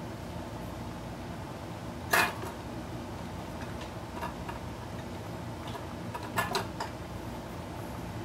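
Kitchen utensils and cookware clattering: one sharp knock about two seconds in, a few light clicks, then a quick run of clinks near the end, over a steady low hum.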